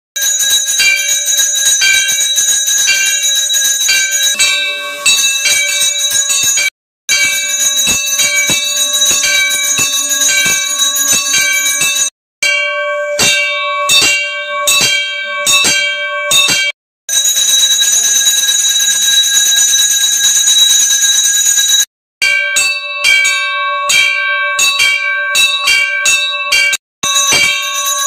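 Temple bells ringing continuously for the puja, struck rapidly at about four strokes a second, with a few sudden brief breaks.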